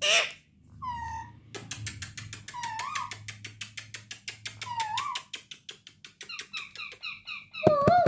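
Alexandrine parakeets vocalising: a long run of rapid clicks, about eight a second and slowing towards the end, with a few short wavering whistles and small high chirps mixed in, then a loud squawk at the very end.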